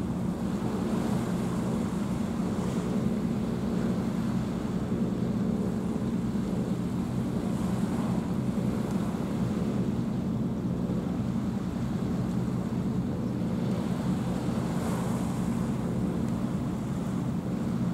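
Steady low drone of a ship's engine, with waves washing and some wind on the microphone.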